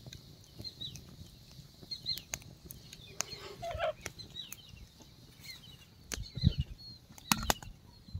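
Small birds chirping in the background, many short falling calls. Roasted brinjals are lifted from a wood fire with sticks and dropped into a plastic bowl with dull knocks; the loudest come about six and a half and seven and a half seconds in.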